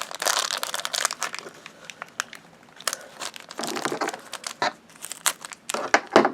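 Plastic toy wrapping crinkling and rustling as it is handled and pulled open, with many short, sharp crackles.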